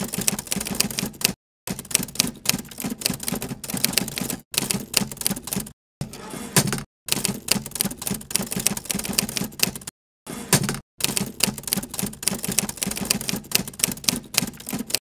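Typewriter sound effect: rapid keystroke clicks in runs, cut by several brief silences between phrases, keeping time with text being typed out on screen.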